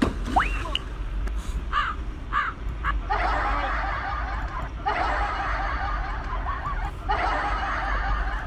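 Dubbed-in comedy sound effects: a quick rising slide-whistle glide near the start, then three bursts of canned laughter beginning about three seconds in.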